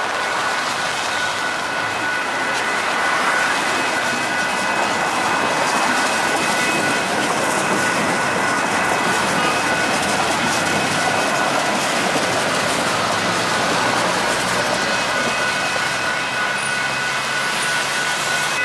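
SITEUR light rail train passing at close range: a steady rolling noise of steel wheels on the rails, a little louder a few seconds in.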